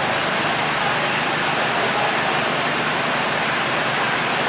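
Steady rushing noise with a faint low hum beneath it.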